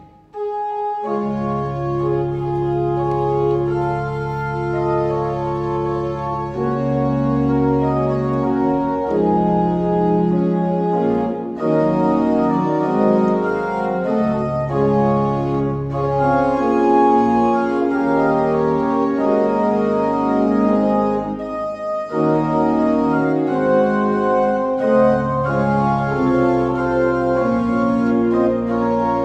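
Church organ playing sustained chords over long, steady low bass notes. The music comes in about half a second in and breaks off briefly twice along the way.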